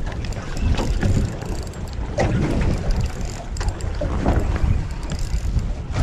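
Strong wind buffeting the microphone: a heavy, uneven low rumble.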